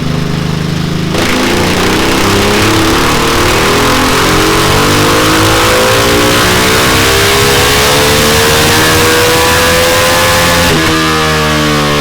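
Ducati Multistrada 1260 S V-twin through a Delkevic 14-inch oval carbon-fibre silencer on a dyno: idling, then the throttle opens about a second in and the revs climb steadily in one long pull for about nine seconds, before the throttle shuts and the revs fall away near the end.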